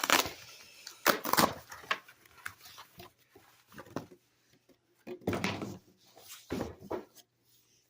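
A thick cardboard mailer being handled and opened: several short bursts of rustling and tearing cardboard and paper, with quieter handling noise between them.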